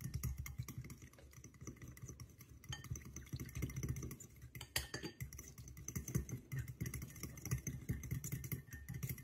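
Metal fork whisking an olive-oil dressing in a porcelain bowl: a quick, continuous run of faint clicks and scrapes of metal against china.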